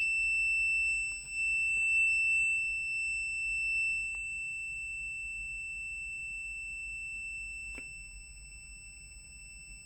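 Continuity buzzer of a FUYI 8233D multimeter sounding one steady, unbroken high-pitched beep while the test leads are shorted, fading somewhat after about four seconds.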